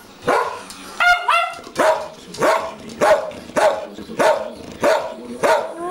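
Two schnauzers barking in a steady rhythm, about three barks every two seconds, with two higher, whining yelps about a second in.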